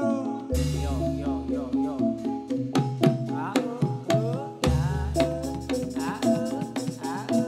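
Live Javanese jathilan dance music: gamelan ensemble with steady ringing pitched notes over quick drum strokes. A deep low note comes in about half a second in and again past halfway.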